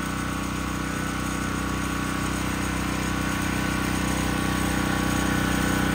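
Yellow open-frame portable generator running steadily with an even engine hum, growing louder toward the end.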